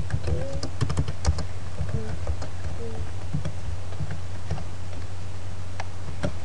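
Computer keyboard being typed on, keys clicking in a quick run for the first second or so, then scattered keystrokes. A steady low hum runs underneath.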